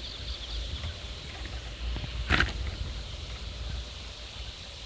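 Low rumble of wind on the microphone, under a steady high chirring of insects. One short rustling scrape comes a little over two seconds in.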